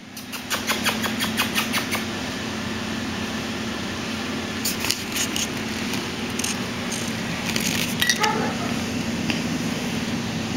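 Pomeranian puppies' claws clicking and pattering on a tile floor, in quick runs of clicks during the first two seconds and again in short bursts later, over a steady room hum.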